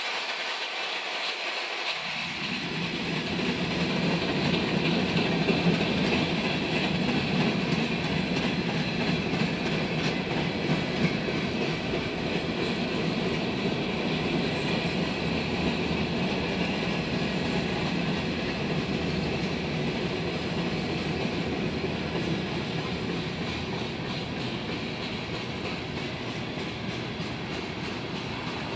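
Freight cars of a passing manifest train, tank cars and then open hopper cars, rolling by on steel wheels with a steady rail rumble. The low part of the rumble comes in suddenly about two seconds in.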